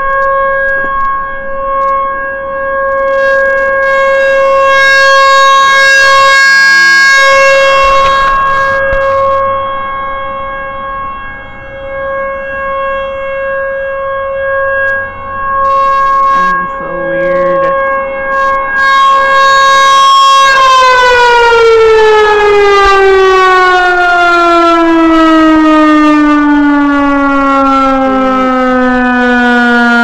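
American Signal T-128 tornado siren sounding a test, holding a steady two-tone wail that swells and fades in loudness. About two-thirds of the way through it begins to wind down, its pitch sliding steadily lower.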